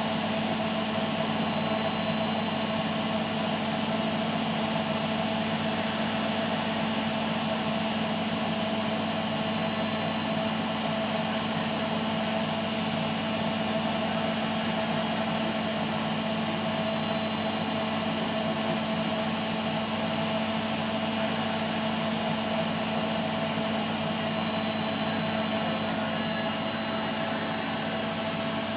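Beko WMA 1510 W washing machine in its final spin: the drum spinning at a steady speed, with an even motor whine and the rush of the spinning drum, unchanging in pitch and loudness.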